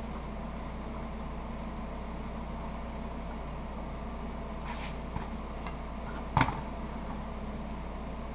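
Steady machine hum, with a leather holster and a small hand tool being handled on a workbench: a brief scrape about four and a half seconds in, a light click, then a sharper knock a little after six seconds.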